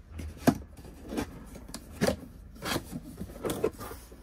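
Cardboard box being opened: its fold-down tabs flipped down and the lid lifted, giving a series of short cardboard snaps and scrapes, about one every half to one second, the sharpest about half a second in.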